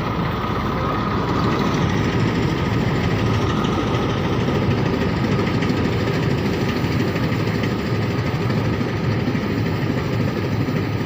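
Mahindra combine harvester running with a steady, unbroken mechanical noise that is strongest in the low range.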